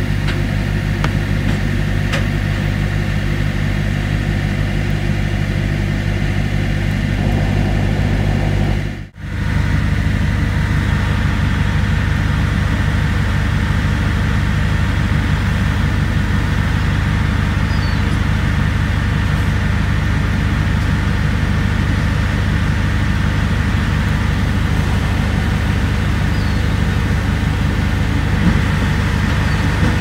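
Vehicle engine idling steadily, heard from inside the car. About nine seconds in, the sound briefly drops out and comes back as a rougher, steady low rumble.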